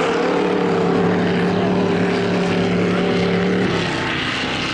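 Race truck engines running hard at full throttle, a steady engine note over loud engine noise; the strongest note drops away about three and a half seconds in.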